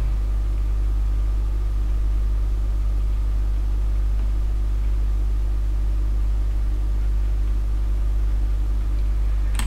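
Steady low electrical hum, like mains hum in the recording, with fainter steady tones above it and no change in level.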